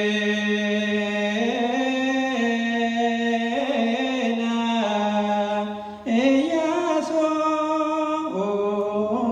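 A solo male voice chanting Ethiopian Orthodox liturgical zema, holding long notes that step up and down, with a short break for breath about six seconds in.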